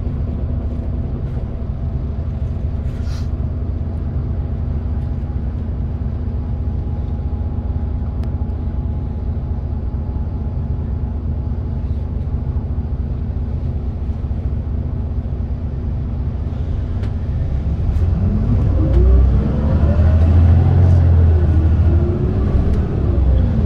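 Mitsubishi Fuso Aerostar city bus's diesel engine idling steadily while the bus stands at a stop. About three-quarters of the way through it revs up with rising and falling pitch as the bus pulls away, heard from inside the cabin.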